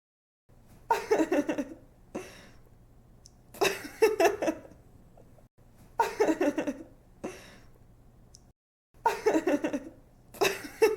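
A young woman laughing in several short bursts of quick, pulsing 'ha-ha' giggles with quieter breathy gaps between them, over a faint low hum. It is a laugh sound effect repeated over and over.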